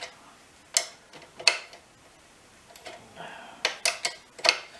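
Half a dozen sharp clicks and knocks of small parts and hand tools being handled, one about a second in, another a moment later, then a quick cluster near the end.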